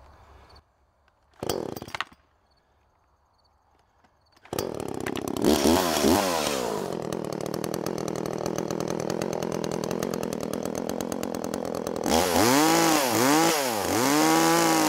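Echo two-stroke chainsaw engine starting about four and a half seconds in, after one brief noise and a quiet pause. It revs, settles into a steady run, then revs up and down repeatedly near the end.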